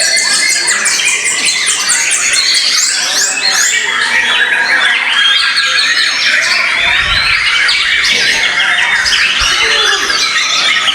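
Several white-rumped shamas singing at once, a loud, dense tangle of rapid warbles, whistles and chatter, with a quick run of high ticking notes in the first two seconds.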